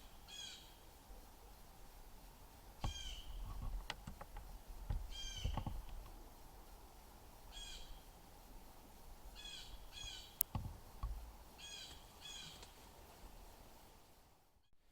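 A bird calling in short doubled notes, one pair every two seconds or so, with a few low bumps and a single sharp click in between.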